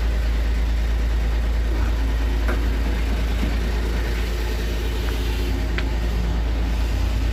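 A vehicle engine idling with a steady deep rumble, with a few faint clicks over it.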